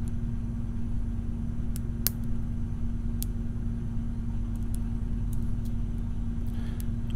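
A steady low hum with a few faint, sharp metallic ticks scattered over it, the clearest about two seconds in. The ticks come from a pick and tension tool working the wafers of an Illinois Duo mortise cylinder, a triple-bitted wafer lock.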